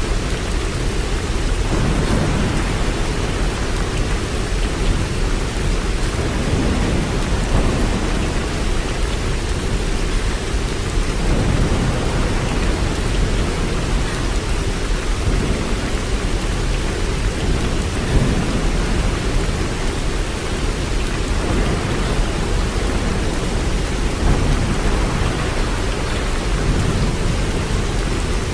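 Waterfall: water pouring and crashing in a steady, unbroken rush, heaviest in a deep low rumble with a lighter hiss above.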